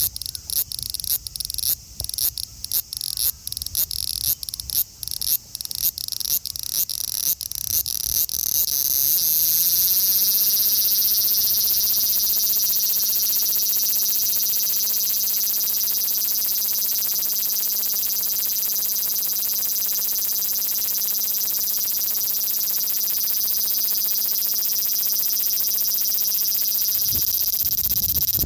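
Male large brown cicada (abura-zemi, Graptopsaltria nigrofuscata) singing: first a run of short pulses about twice a second, then from about nine seconds in a continuous high buzzing song.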